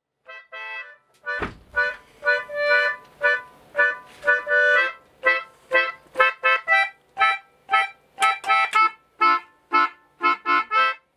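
A concertina playing a tune of short, separate chords with brief gaps between them. There is a low thump about a second and a half in.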